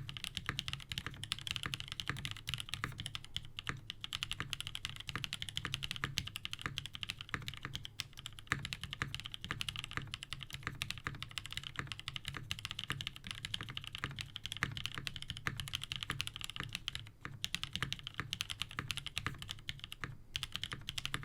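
Fast, continuous typing on a Sirius WKL all-POM mechanical keyboard with Krytox-lubed Novelkey Cream linear switches, a POM plate, GMK keycaps and no sound dampening: a dense stream of key clacks with two short pauses near the end.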